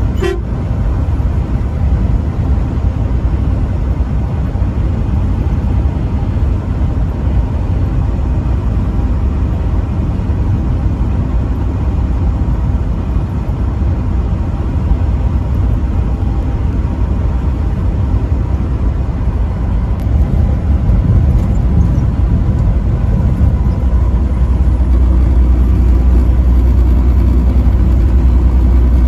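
Steady road and engine rumble of a vehicle driving on a highway, with a brief sharp sound right at the start. The low rumble grows louder about 24 seconds in.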